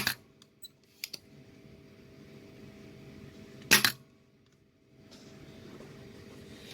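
Sharp metallic clicks of desoldering tools at a modem's circuit board: a few small clicks at the start and one louder snap about four seconds in, over a steady hum and faint hiss.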